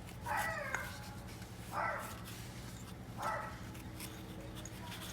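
Three short animal cries, about a second and a half apart, over a steady low hum.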